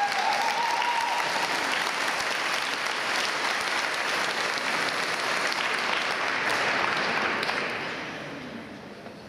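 Audience applauding a finished ice dance routine, steady, then dying away over the last second or two.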